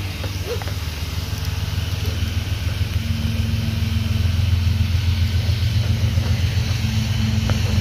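Approaching diesel locomotive: a low, steady engine rumble growing louder, with a steady hum joining about three seconds in.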